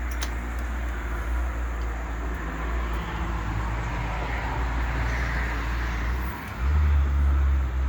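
Road traffic outdoors: a vehicle passing, its noise swelling and fading through the middle, over a steady low rumble that grows louder near the end.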